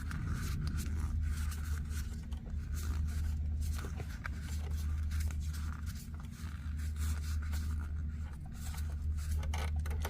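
Weiss Schwarz trading cards and their packaging being handled: a run of short rustling, sliding and scraping sounds over a steady low hum.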